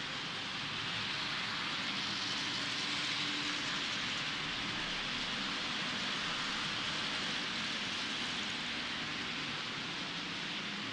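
Model railway freight train running past on the layout track: a steady hiss of small wheels rolling over the rails along with the locomotive's motor, growing a little louder about a second in as the train comes close.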